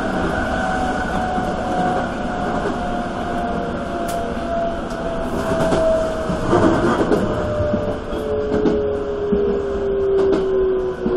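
Toei 5300 series electric train running at speed, heard from the driver's cab: a steady rumble with a motor whine whose two tones fall slowly in pitch as the train slows. Wheels click over rail joints now and then, most of them in the middle.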